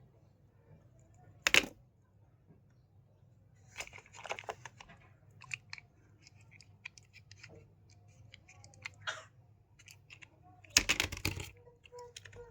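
Scattered clicks and knocks over a low hum, with a sharp knock about a second and a half in and a louder clatter near the end.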